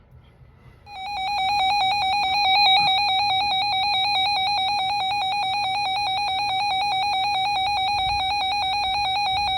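Weather alert radio's built-in alarm going off: a loud electronic tone that warbles rapidly and evenly, starting about a second in. It signals an incoming warning broadcast.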